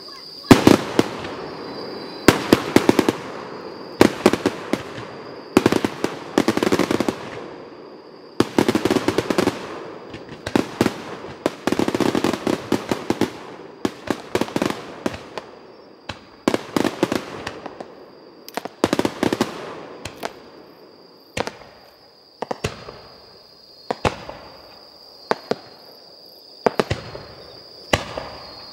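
Fireworks display: aerial shells bursting one after another, a sharp bang every second or two, many trailed by clusters of quick pops and crackle. The bursts thin out to single, spaced reports in the last several seconds.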